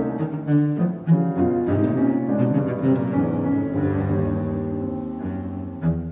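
Cello and piano playing a twelve-tone chamber-music passage: a bowed cello line over short piano chords and figures, coming to a close just before the end.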